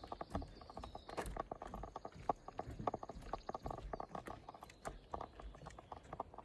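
Footsteps on a dirt hiking trail: a steady run of quick, irregular steps.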